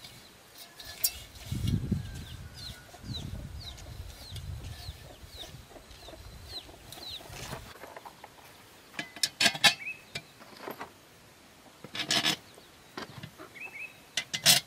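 Handling noise from a rubber tyre and rusty steel wheel rim being worked by hand: low rubbing at first, then several sharp clinks and knocks in the second half. A bird chirps repeatedly in short falling notes in the first half.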